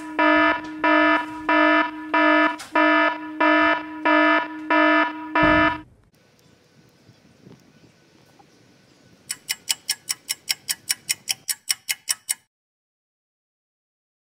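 Electronic alarm buzzer beeping loudly, about two harsh buzzing pulses a second, then cutting off abruptly about six seconds in. Later, a quick run of sharp ticks, about six a second, lasts some three seconds.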